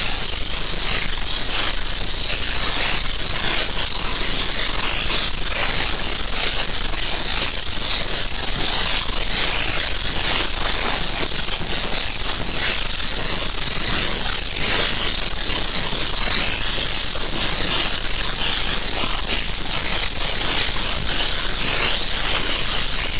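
Steady, loud chorus of night insects, a continuous high-pitched chirring with no break.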